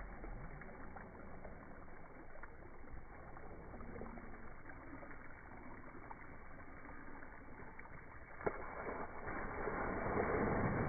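Slowed-down water from a slip-and-slide's sprinkler hose, a low, muffled spray. A sharp knock about eight and a half seconds in, then louder splashing as a child slides down the wet plastic toward the camera.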